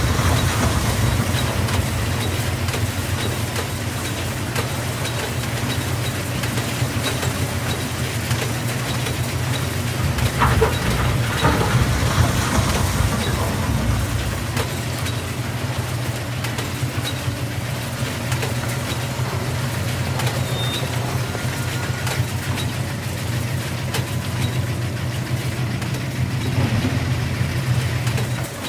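Steady mechanical hum of motorized model quarry machinery: the RC wheel loader and the trommel screen with its conveyor belt. Loose soil and stones rattle as the loader's bucket tips them into the trommel, most clearly at the start and again about ten seconds in.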